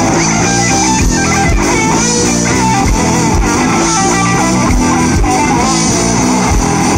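A rock band playing live through a PA: electric guitars, bass guitar and a kick-drum beat.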